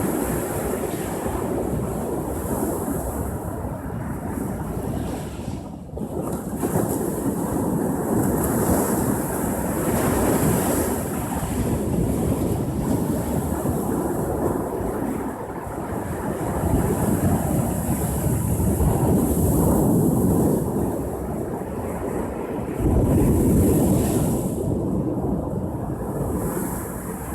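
Ocean surf breaking on a shore, a continuous wash that swells and eases every few seconds as waves come in, with wind rumbling on the microphone.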